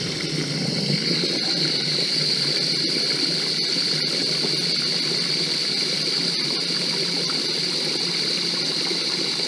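Water running steadily from an expandable garden hose into the clean-solution tank of a portable carpet extractor as it fills, with a brighter hiss coming in about a second in.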